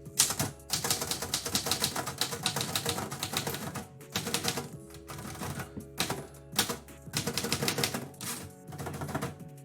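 Typewriter keys striking in quick runs of typing, broken by short pauses about four, six and nine seconds in.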